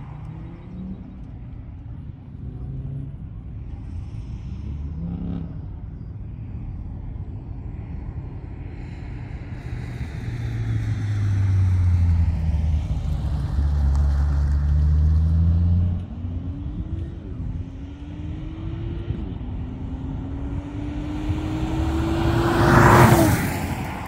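A car accelerating hard down an eighth-mile drag strip, its engine climbing in pitch through the gear changes and growing louder. It passes close by near the end. A deep engine rumble swells and fades before the run builds.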